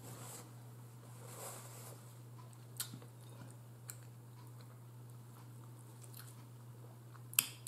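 Quiet chewing of air-fried chicken, with a few sharp clicks of a metal fork against a ceramic bowl as meat is pulled off a chicken leg, the loudest near the end, over a steady low hum.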